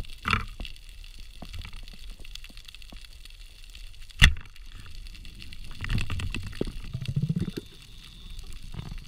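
Underwater hiss with scattered small clicks, broken about four seconds in by a single sharp crack of a speargun firing. A stretch of rapid rattling and low rumbling follows a couple of seconds later.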